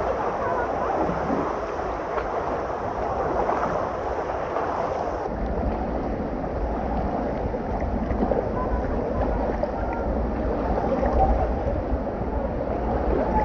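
Water-park wave pool: water surging, sloshing and splashing in a steady wash of noise. A low rumble joins in about five seconds in.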